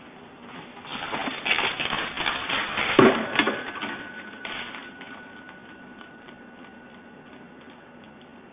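A deer's hooves clattering rapidly on asphalt as it runs, then a loud thud about three seconds in and a second hit just after as it runs into a parked car. A faint steady tone hangs on afterwards.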